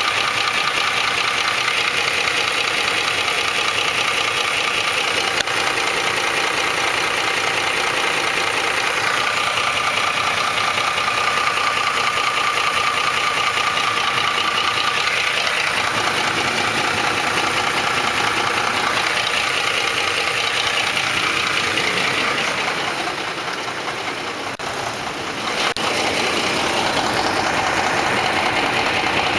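Ford 5.4L 3-valve V8 idling with a fast, steady ticking and slapping knock. The sound is the timing chains slapping against the engine block because the chain tensioners have failed, along with worn cam phasers. The level dips briefly about three-quarters of the way through, then comes back.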